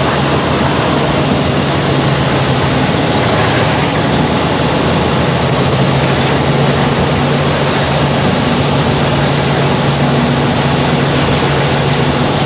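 English Electric 16-cylinder diesel engine of a Class 40 locomotive running, heard from inside the driver's cab as a loud, steady drone.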